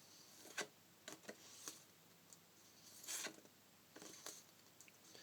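Faint handling sounds of cards and box contents: a few light clicks and taps, with a brief rustle about three seconds in.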